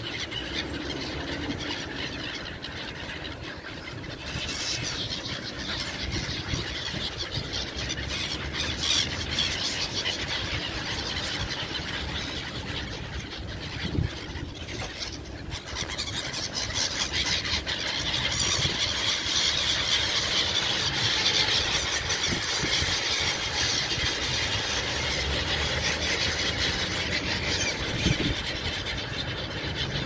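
A large flock of gulls calling all at once: a dense, unbroken chorus of overlapping high-pitched cries, louder in the second half.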